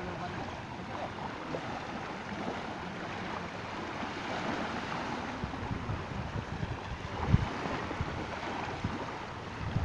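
Small waves lapping and breaking on a sandy shore, a steady wash of surf. Wind buffets the microphone in a few low thumps in the second half, the loudest about seven seconds in.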